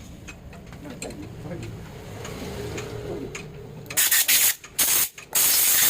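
Loud, high-pitched hissing in short on-off bursts, starting about four seconds in after a quieter rumble.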